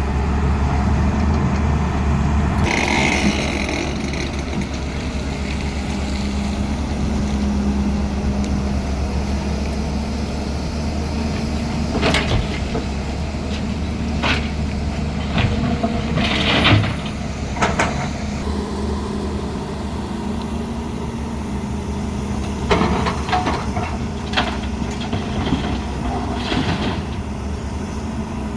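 Heavy diesel machinery running steadily at a low drone, with a hiss about three seconds in and short clattering knocks now and then through the middle and later part.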